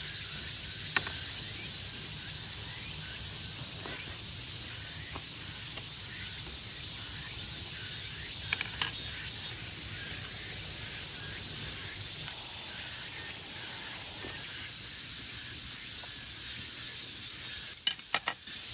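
Steady high hiss, with a few light taps and clicks of chopsticks and tableware while eating, several close together near the end.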